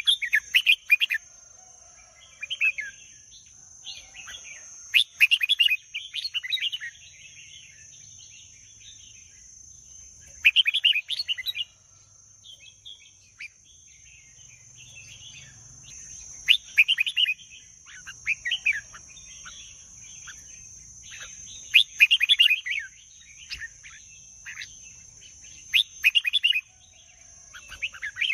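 Red-whiskered bulbul singing short, bright warbled phrases, one every few seconds, over a steady high-pitched hiss.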